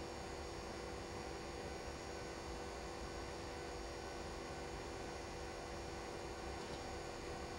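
Steady electrical hum of several fixed tones over a faint, even hiss, with no change in pitch or level.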